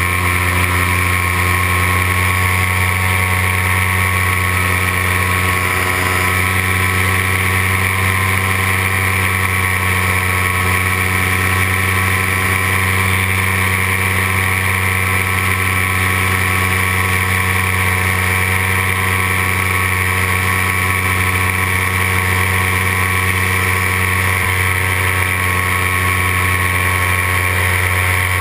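Paramotor engine and propeller running steadily in flight, one constant pitch with no change in revs.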